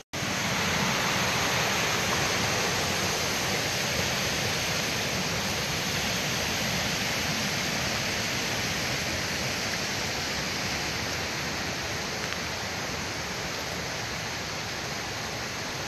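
Rocky woodland creek rushing over stones and small cascades: a steady rush of running water that eases slightly toward the end.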